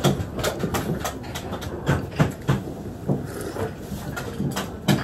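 Close-up eating sounds: irregular sharp clicks and smacks from chewing and from chopsticks picking food out of a ceramic rice bowl.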